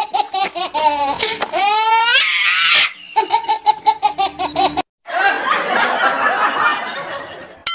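Rapid, high-pitched laughter in quick even pulses, broken about two seconds in by a short rising squeal. It cuts off abruptly just before five seconds and gives way to a denser, noisier stretch of laughter.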